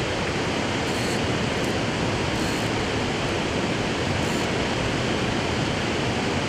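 Steady, even rushing of moving water, as from a river weir.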